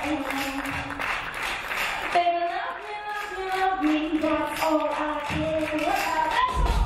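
A woman singing live into a handheld microphone over backing music, with audience clapping in the first couple of seconds.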